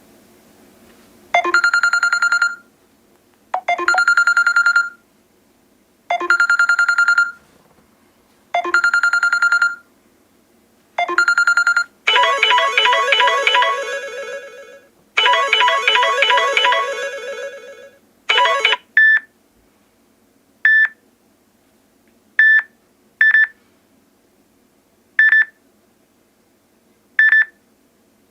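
Samsung Galaxy S6 Edge ringtones played one after another: first a single electronic tone repeated five times, about every two and a half seconds; then a short busy melody; then short single beeps every second or two.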